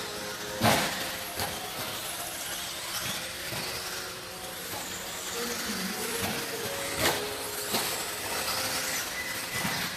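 Radio-controlled buggies running on a dirt track, a steady run of motor whine and tyre noise whose pitch shifts as they speed up and slow down. Two sharp knocks stand out, about a second in and about seven seconds in.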